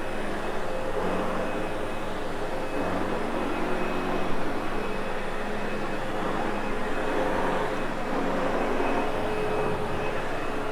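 Sebo X8 upright vacuum running steadily on carpet: an even motor hum and whine with the brush roll sweeping, the level swelling and easing slightly every second or two.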